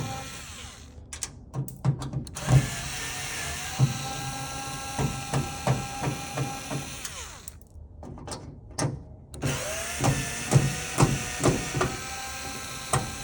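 Power drill running in three bursts, its motor whine sliding down each time the trigger is let off, with a series of sharp knocks while it runs. This fits backing out the fasteners that hold the door panel on.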